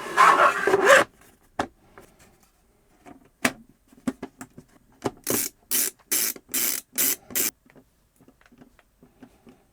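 3D-printed plastic enclosure panels being handled and fitted together. A scraping rustle, a few sharp clicks, then a run of short quick scrapes about two to three a second.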